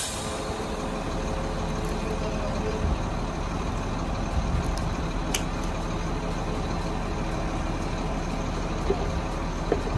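Crane truck's diesel engine running steadily, powering the hydraulic crane as it lowers a boat hanging in slings. A single sharp click about five seconds in.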